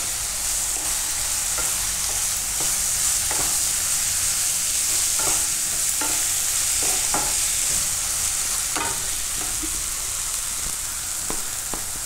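Chopped green onions, tomato and coriander leaves frying in oil in a nonstick kadai with a steady sizzle, while a spatula stirs them, knocking and scraping against the pan at irregular moments.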